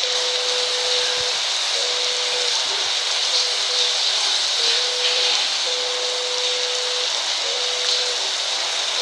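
Shower spray running steadily, a loud even hiss of falling water. A faint tone comes and goes through it.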